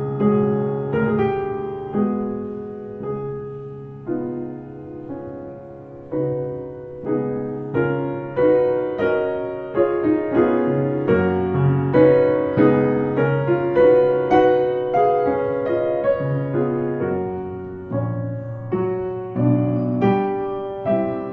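Background piano music: a slow, gentle piece of single struck notes and chords, each ringing and fading before the next. It grows softer for a few seconds, then fuller again.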